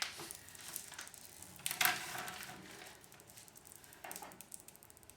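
Faint handling noise: a plastic sheet rustling, with light clicks and a louder brief scrape about two seconds in.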